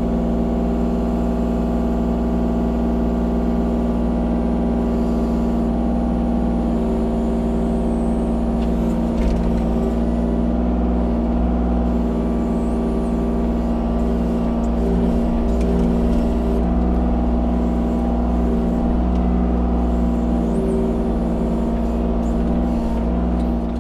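Kubota U35-4 mini excavator's diesel engine running steadily at a constant speed, without revving up or down.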